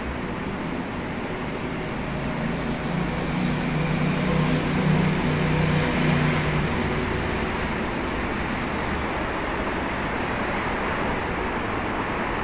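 City street traffic noise. A motor vehicle's engine hum grows louder as it passes about two to seven seconds in, loudest around the middle.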